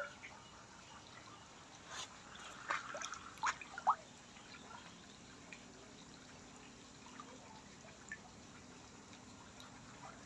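Faint bubbling and trickling of water churned by aerators in a tarpaulin fish pond, with a cluster of short drips and splashes about two to four seconds in.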